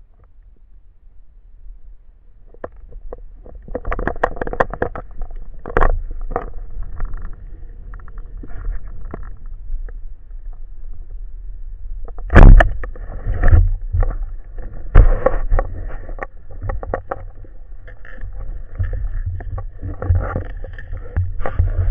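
A motor hum, as of a boat engine, with repeated knocks and bumps; the sound builds up a few seconds in, and the loudest knocks come a little over halfway through.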